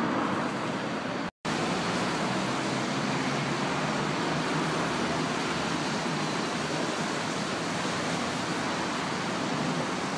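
Steady hum of city road traffic, a continuous wash of passing cars and minibuses with no distinct events; the sound cuts out completely for a moment about a second in.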